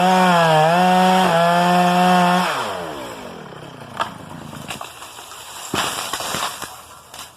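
Two-stroke chainsaw running at high revs, its pitch dipping and rising under the cut. About two and a half seconds in, the revs fall away and the saw winds down. A few sharp cracks follow.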